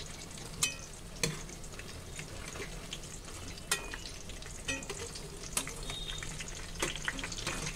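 Batter-coated jackfruit pakodas sizzling steadily as they deep-fry in oil in a kadhai. Several sharp clicks come from a perforated metal skimmer knocking against the pan as the fritters are turned over.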